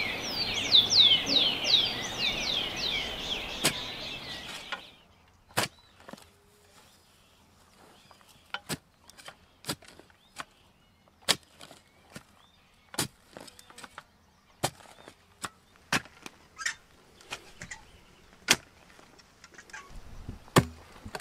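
A bird singing a rapid run of short, downward-sweeping chirps over a steady outdoor hiss, cutting off about five seconds in. Then a long series of sharp, irregular knocks, roughly one a second, from hand tools striking hard soil as a post hole is dug.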